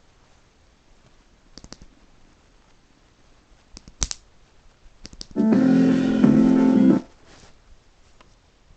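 Piano-like music playing through small speakers driven by a Bluetooth audio module and a PAM8406 amplifier. It sounds for about a second and a half past the middle and cuts off abruptly. A few small clicks come before it.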